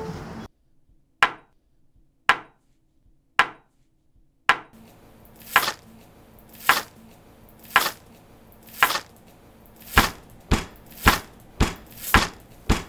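Sharp, chopping-like knocks looped into a beat. Three lone strikes come about a second apart, then a steady pulse of about one a second begins, speeding up to about two a second near the end.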